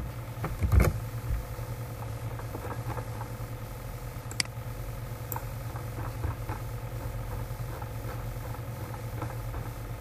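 Steady low electrical hum with a few faint clicks, the sharpest about four and a half seconds in.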